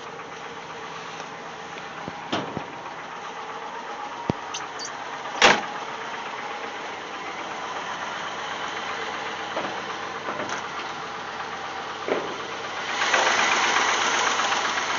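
AMC 360 V8 in a Jeep Grand Wagoneer idling steadily with a light metallic tick that comes and goes. The owner is unsure of its cause and wonders about a lifter or a bent rod. A few sharp clicks stand out, the loudest about five and a half seconds in, and the engine noise grows louder about two seconds before the end.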